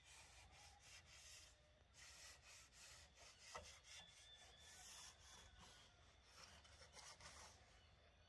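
Faint, irregular rubbing strokes against a wall surface, with a single light tick about three and a half seconds in.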